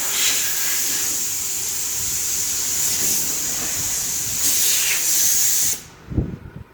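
Steady, loud hiss of compressed air from pneumatic shop equipment during a transmission oil change, cutting off suddenly about six seconds in, followed by a short low thump.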